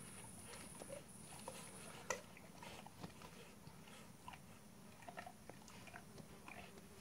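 Faint soft clicks and scuffs of Labrador retrievers mouthing and chewing a toy ball, with one sharper click about two seconds in. A faint high hiss stops about two seconds in.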